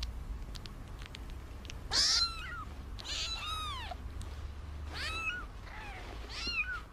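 Newborn kittens mewing: several short, high-pitched mews, each rising and then falling in pitch, the loudest about two seconds in.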